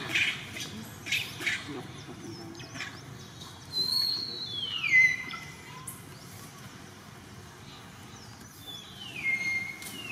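Two high, clear calls, each sliding down in pitch, about four seconds apart, from a small animal, a bird or a young monkey. A few short clicks come in the first second or so.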